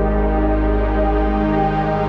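Ambient, new-age style background music: steady held synthesizer chords over a low drone.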